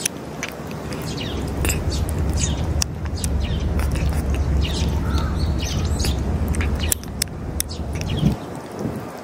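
A cat eating wet food from a metal dish at close range, with quick wet chewing and licking clicks. Birds chirp in the background over a low steady rumble that stops near the end.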